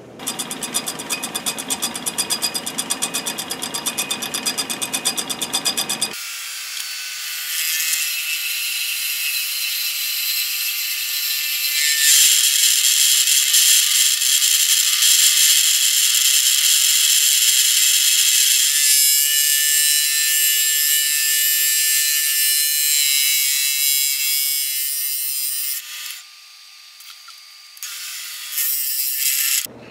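Atlas 618 bench lathe running while a cutting tool faces the faceplate. A rapid, even ticking comes first. After about six seconds it gives way to a steady high hiss from the cut, which grows louder for a stretch and stops a few seconds before the end.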